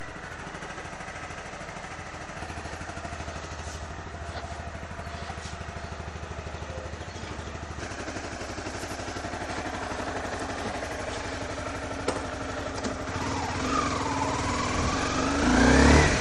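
Motorcycle engine running with an even pulsing beat, growing slowly louder; in the last few seconds it revs up, its pitch rising steeply.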